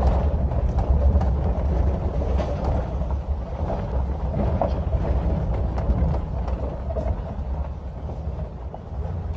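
Low, steady rumble of a vehicle's engine and tyres rolling slowly over a rough gravel road, heard from inside the cab, with scattered small knocks and rattles.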